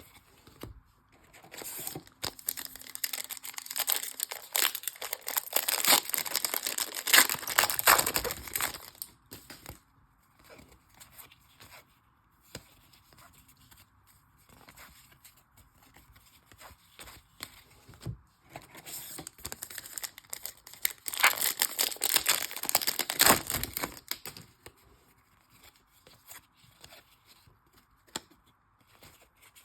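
Trading card pack wrappers being torn open and crinkled. There are two long spells of tearing and crinkling, one starting about a second in and one about twenty seconds in, with quieter rustling between.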